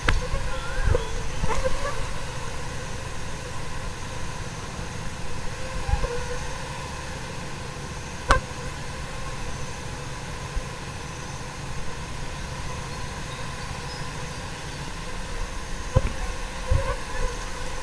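A dense swarm of fruit flies in flight, their countless beating wings blending into a steady hissing hum with several faint held tones. A single sharp tick sounds about eight seconds in.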